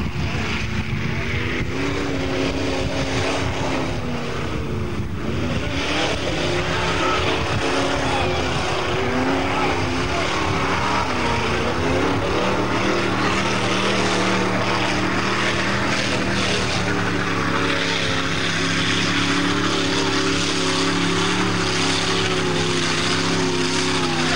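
Formula off-road (torfæra) buggy's engine running hard under load on a hill climb, its pitch rising and falling with the throttle. About halfway through a steadier, lower engine drone sets in.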